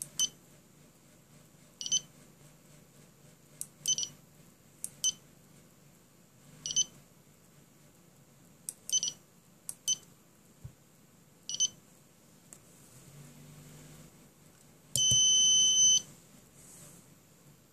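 Small electronic buzzer on an Arduino circuit giving short, high beeps at uneven intervals, then a steady alarm tone about a second long near the end, matching the system's alarm state.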